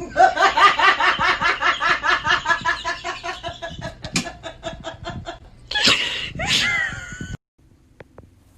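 A woman laughing hard in a long run of rapid, evenly repeated ha-ha pulses that slowly fade, then two louder bursts of laughter before the sound cuts off abruptly.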